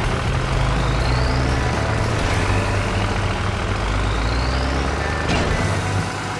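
Excavator engine sound effect running steadily with a deep hum. A rising whine repeats every second or two over it, and there is one sharp click near the end.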